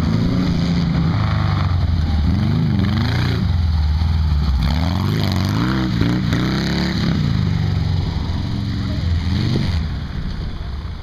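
Volkswagen Baja Bug's engine revving up and down repeatedly as it is driven hard, the pitch rising and falling several times; it eases off about ten seconds in.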